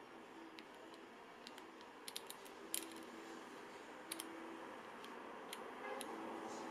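Small plastic clicks of a Panasonic GH5's rear control dial and buttons being turned and pressed: a quick run of three clicks about two seconds in, a louder single click just after, a pair near the middle, and a couple of lone clicks near the end, over a faint background hum.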